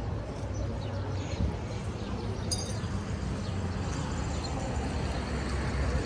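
Road traffic on a multi-lane street: a steady rumble of car engines and tyres, growing a little louder near the end as a vehicle comes closer. A brief sharp clink about halfway through.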